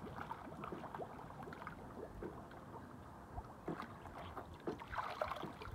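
Hot tub water sloshing and lapping with small splashes, stirred by a person ducked under the surface.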